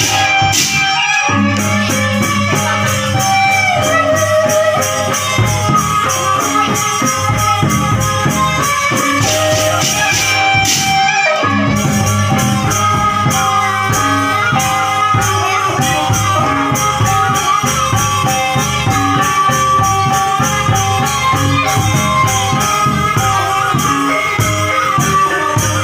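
Live Javanese traditional ensemble playing: a bamboo suling flute melody over steady percussion, with a shaken, rattling beat and held low tones underneath.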